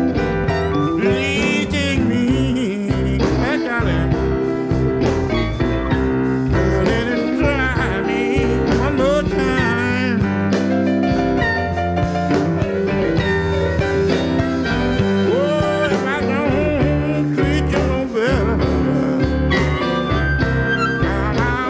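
A live electric blues band (piano, electric guitar, harmonica, bass and drums) playing an instrumental passage: wavering, bent lead notes over a steady beat.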